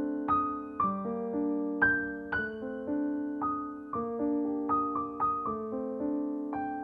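Background piano music: notes struck about twice a second over held chords, each note fading after it is struck.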